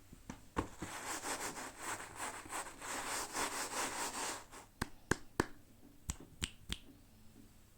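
Hands unboxing toy packaging: a few seconds of quick rubbing and scraping, then about six sharp clicks, one after another.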